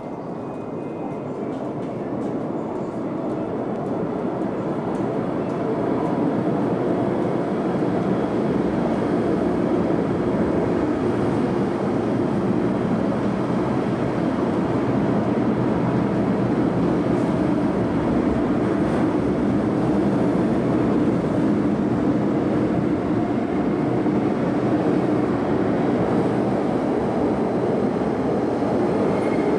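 An MTR metro train running through the station without stopping, a steady rumble of wheels and traction heard behind the platform screen doors. The rumble grows louder over the first several seconds as the train comes in, then holds steady as it passes.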